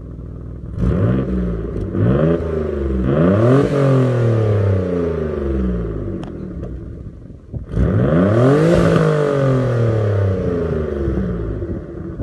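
1993 Dodge Stealth Twin Turbo's twin-turbo V6 through its stock exhaust, revved up four times, each rev climbing quickly and falling back to idle; the third and fourth revs are the biggest and take a few seconds to settle.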